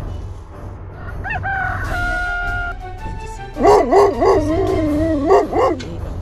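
A rooster crows, ending on one long held note. About three and a half seconds in, a puppy howls for about two seconds, its pitch wavering up and down.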